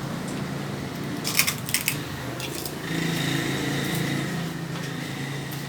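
Tableware clinking several times in quick succession, about a second and a half in, over a steady low hum.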